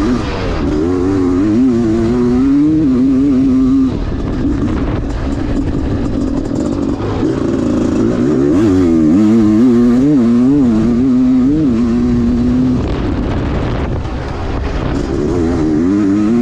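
Honda CR500's single-cylinder two-stroke engine being ridden hard, its pitch rising and falling quickly with the throttle. The engine eases off briefly about four seconds in and again about thirteen seconds in before pulling again.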